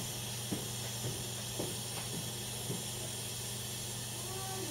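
Steady hiss with a low hum from the oven as its broiler heats a cast iron skillet, with a few faint ticks.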